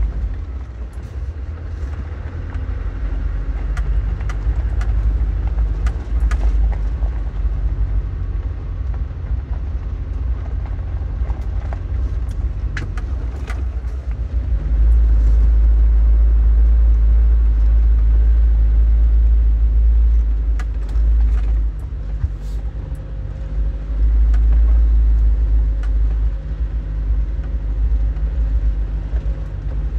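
A vehicle driving slowly over a rough, rutted dirt track, heard from inside the cab. A low engine and tyre rumble swells louder for several seconds at a time, with scattered knocks and rattles as it jolts over the ruts.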